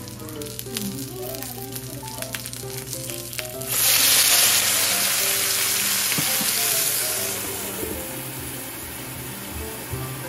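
Gyoza frying on an electric hot plate with light crackling. About four seconds in, water is poured onto the hot plate and it breaks into a loud hissing sizzle, which eases off over the next few seconds as the gyoza steam.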